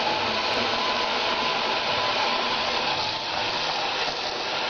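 Steady rush of running water that starts abruptly and holds even.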